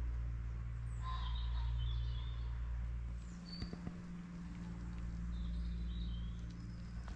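Small birds chirping in short calls a few times, over a steady low mechanical hum that shifts slightly a little past halfway.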